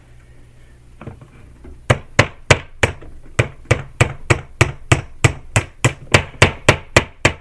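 Hammer tapping the retaining pin back in through a polymer trigger guard on an airsoft M4 receiver: a few light taps, then from about two seconds in a steady run of sharp strikes, about three a second.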